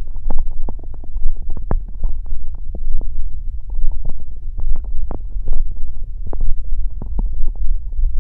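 Stomach growling and gurgling: a loud, low rumble with many short popping gurgles.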